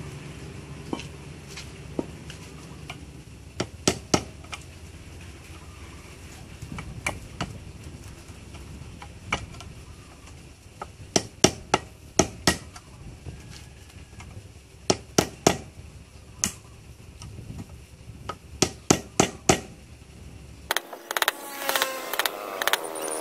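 Hammer tapping a chisel or punch against the hard resin casing of a motorcycle DC ignition coil held in a steel vise, chipping it open: sharp irregular taps, some in quick runs of three or four, over a steady low background noise.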